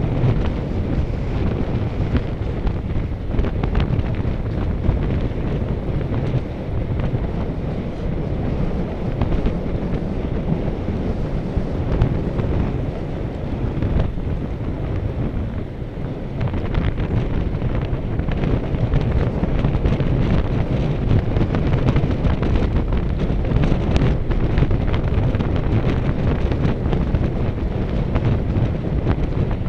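Wind buffeting the microphone: a steady, loud low rumble that goes on without a break.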